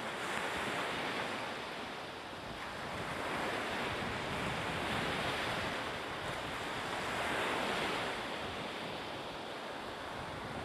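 Rushing wind and sea noise with no distinct events, swelling and easing every few seconds.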